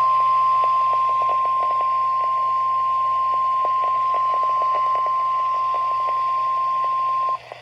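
NOAA Weather Radio warning alarm tone, a single steady high-pitched tone near 1,050 Hz, held for about seven seconds and then cutting off suddenly near the end, with faint radio static crackling beneath it. It is the alert tone that announces a severe thunderstorm warning.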